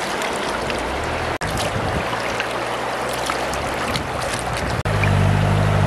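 Shallow river water running over stones, with light splashing and trickling as hands wash raw chicken in a woven basket in the water. A low steady hum comes in near the end.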